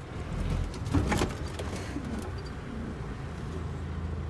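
Steady low hum of a DAF truck's diesel engine idling, with a brief clatter about a second in.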